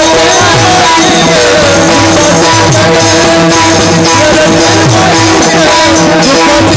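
Group singing of a devotional abhang: voices carry a gliding melody over a held drone. Small brass hand cymbals (taal) clash in a steady rhythm, and a drum beats below them.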